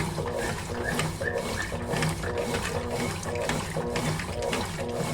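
Consul Facilite 11 kg top-loading washing machine agitating its load in water during its short-soak stage: a motor hum under a rhythmic back-and-forth churning and sloshing.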